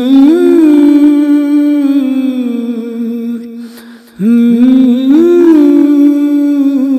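A man humming a wordless melody between the sung lines of an Urdu naat. There are two phrases, each sliding up into a long held note; the second begins about four seconds in.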